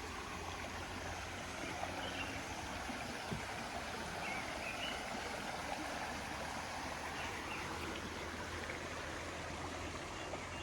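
Stream water flowing and rushing steadily, with a few faint high chirps over it.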